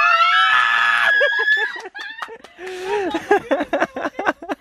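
A young woman's high-pitched scream of joy, held for over a second, then breaking into short bursts of excited laughter and squeals.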